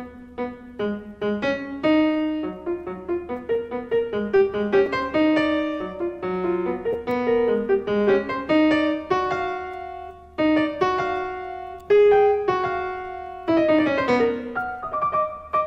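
Piano music over the credits: a brisk melody of short struck notes over a moving bass line.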